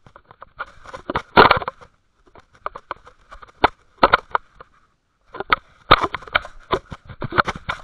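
Irregular, loud clicks, crackles and scrapes of something rubbing and knocking directly against a small fishing-line camera's housing, heaviest about a second and a half in and again in the second half.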